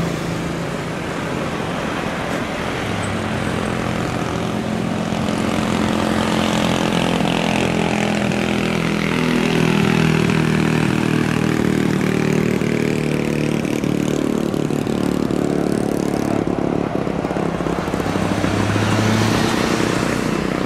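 Boeing 737-500 landing, its CFM56-3 turbofan engines running with a steady drone and a high whine. The sound grows loudest about halfway through as the jet passes low in front, and the aircraft is on the runway by the end.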